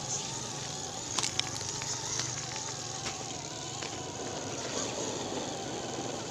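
4WD RC car's electric motor and gears whining faintly as it drives, the pitch wavering with the throttle, over a steady background hiss with a few light knocks.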